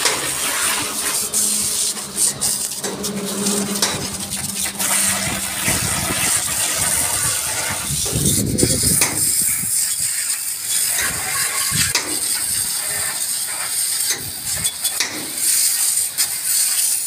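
High-pressure water jet from a washer hose hitting the bare steel frame of a stripped Tata bus body: a steady spraying hiss with rattling spatter off the metal. A low steady hum sits under it for the first six seconds or so.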